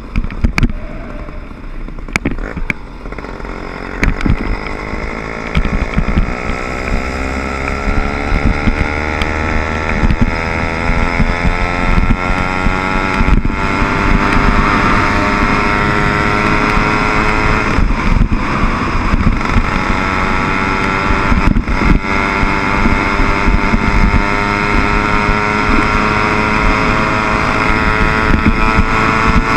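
Small 60/80cc motorbike engine under way. Its pitch climbs steadily for about ten seconds as it speeds up, and it gets louder. It then runs at a steady high pitch, with three brief dips where the throttle eases.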